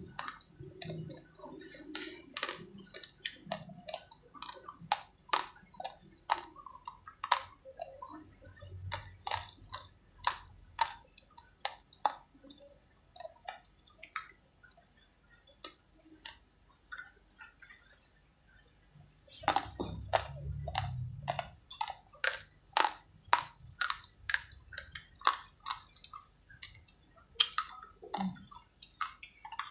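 Close-up crunching of raw, uncooked rice grains being chewed: sharp, irregular cracks several a second, thinning out briefly about halfway through. About two-thirds of the way in there is a short, louder rush of noise.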